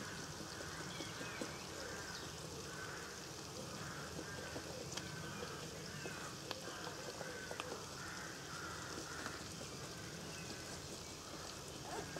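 Chorizo and onions sizzling steadily in a frying pan on a gas camping stove, with a few faint clicks and faint bird calls in the background.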